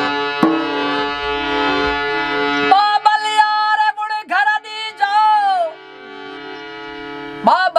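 Rajasthani folk song. A sustained instrumental drone opens; about three seconds in, a voice sings long, bending phrases over it, drops out, and comes back in near the end.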